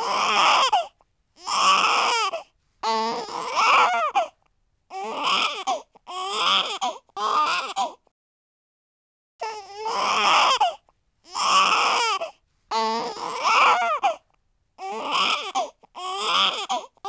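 A baby crying in a string of short cries about a second long each, separated by brief catches of breath, with a pause of about a second and a half partway through before the crying resumes.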